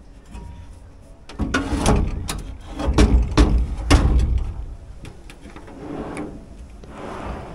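A canopy drawer being pulled out on its runners: a rumbling slide with a run of clunks and knocks, loudest about three to four seconds in, then softer rattles.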